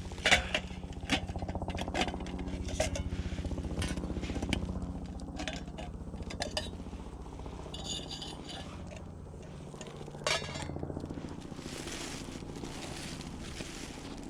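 Metal camp cookware clinking and knocking several times, with a pot and utensils being handled to boil water, over a steady low rumble.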